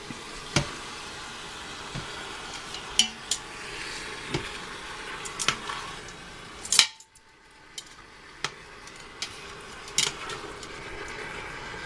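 Pieces of beef roast sizzling as they sear in a pot, with scattered clinks and knocks of a utensil against the pot. About seven seconds in, a loud clack is followed by a sudden brief drop in the sizzling, which then comes back.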